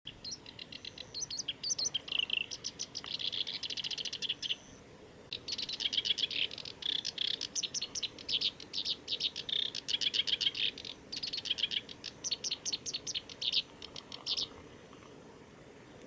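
Black-browed reed warbler singing: rapid runs of repeated high notes, with a short break about four and a half seconds in, then a long second phrase that stops about a second and a half before the end.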